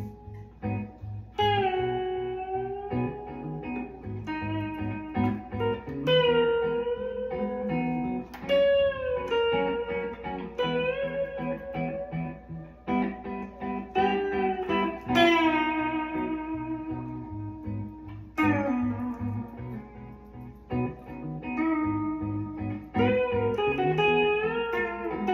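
Les Paul-style electric guitar playing a blues lead full of string bends: picked notes slide up in pitch and are held, some with a wavering vibrato, phrase after phrase.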